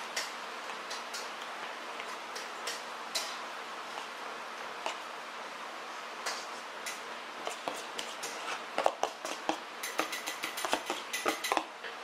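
A spoon scraping and tapping against a bowl and a plastic food container while kimchi is spooned from one into the other. The clicks are scattered at first and come thick and fast from about two-thirds of the way in, over a steady background hiss.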